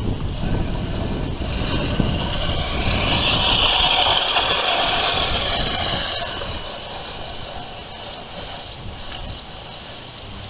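Manual push reel lawnmower whirring as its spinning blades cut tall grass, loudest in the middle and fading over the last few seconds.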